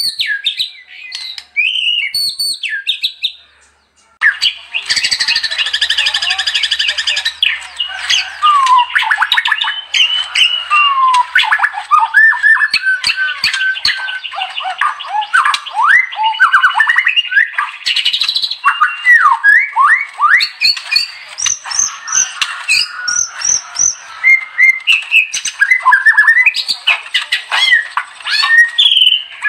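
White-rumped shama singing a fast, varied song of whistled sweeps, trills and harsh chattering notes. A short pause about four seconds in, then a dense unbroken stream of song.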